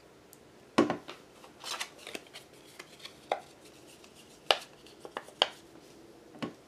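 Handling sounds on a craft table: a few separate sharp taps and knocks, the loudest about a second in and again past the middle, with soft paper rustling as a cut-out paper circle is lifted off a journal page and turned over.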